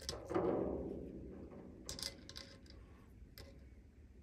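Small screws being handled and set into the holes of a resin vat's aluminium frame: a ringing knock just after the start that fades over about a second, then a few light clicks.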